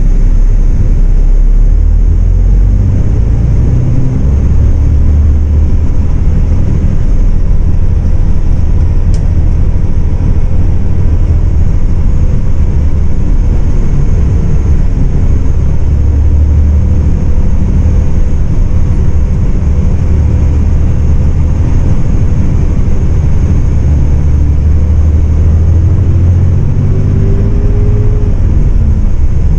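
MAN 18.350 coach's diesel engine running under way, heard from inside the passenger cabin: a loud, steady low rumble mixed with road noise, its pitch gliding up and down as the bus changes speed, with a rise near the end. A faint, steady high whine runs under it.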